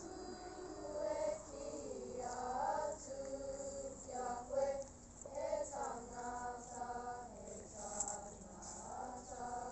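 A group of school children singing a waiata together, with several held notes.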